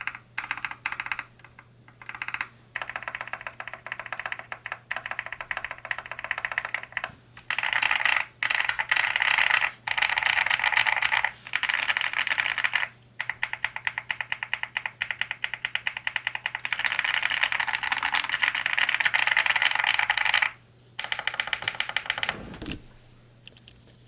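Typing on a Cidoo V65 V2 mechanical keyboard with hand-lubed Akko V3 Cream Black Pro linear switches, tape-modded and foam-swapped. It comes in fast runs of key clicks broken by short pauses, and stops near the end.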